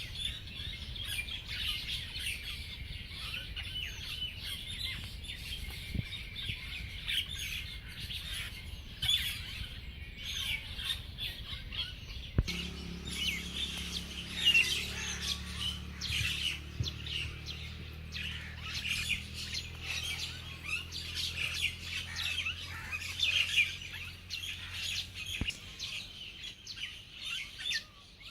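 A busy chorus of birds chirping and calling, many short overlapping calls throughout. A steady low hum joins in about halfway through and fades out shortly before the end.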